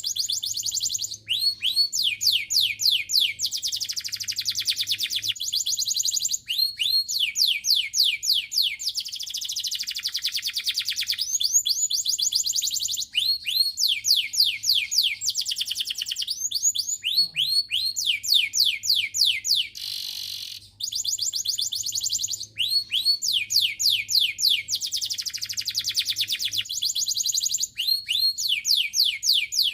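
Domestic canary singing a long, loud song of rapid trills and repeated fast down-swept notes, with brief breaks every few seconds.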